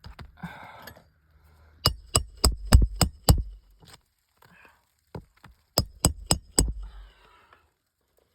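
Hammer strikes driving new roofing nails into an asphalt shingle with a roof snake: a quick run of about six ringing blows, then after a pause four more.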